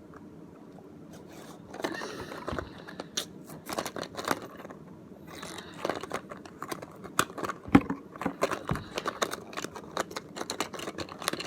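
Small toy magnets and their plastic case handled close up: after a quiet second or two, a long run of quick clicks, taps and rustling scrapes.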